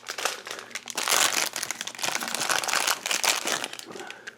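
Plastic blind-bag wrapper crinkling continuously as it is opened and the figure is rummaged out, dying away near the end.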